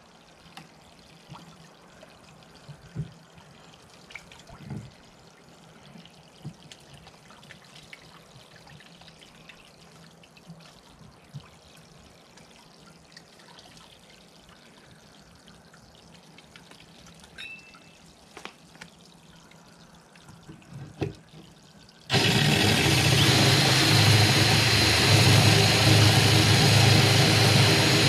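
Faint trickling water and small taps, then about 22 seconds in a cordless drill starts and runs steadily with a hole-saw bit boring through aquarium glass, a loud even motor noise with a steady high whine.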